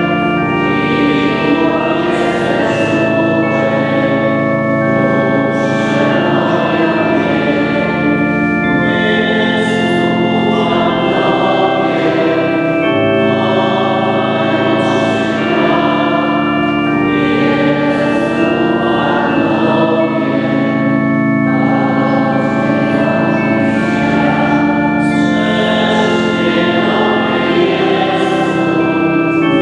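Many voices singing a slow church hymn over organ accompaniment, the notes and chords held long and changing slowly.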